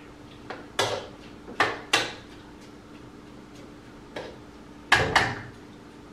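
Cookware clanking against a cooking pot: several sharp knocks with short ringing tails, two in quick succession about five seconds in.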